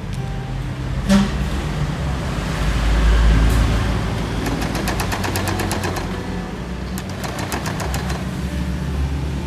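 Portable electric sewing machine stitching: its motor hums steadily, and the needle ticks rapidly and evenly in two short runs, with a sharp click about a second in.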